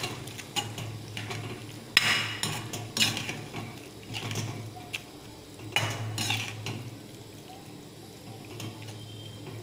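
Steel spatula scraping and clinking against a metal kadhai while stirring kidney beans into thick masala gravy. The strokes come irregularly, about a second apart, and thin out near the end.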